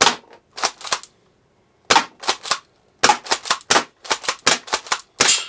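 ASG SPAS 12 spring airsoft shotgun being fired and pumped over and over: a string of sharp snaps and clacks. A few come spaced out at first, then about four a second from the middle on.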